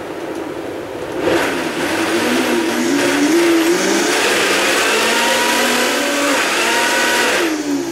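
Countertop blender running on a thick avocado, coconut-milk and cacao pudding mix. It starts at a lower speed and is turned up about a second in, its motor whine wavering as it churns the mix, then it is switched off just before the end.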